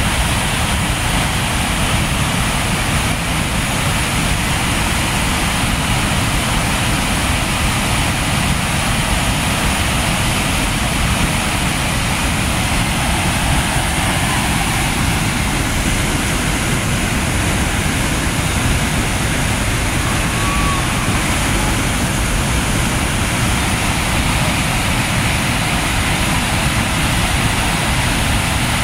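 Floodwater pouring over a concrete dam spillway and churning in the pool below: a loud, steady rush of falling water. The reservoir is in flood, with a heavy flow over the crest.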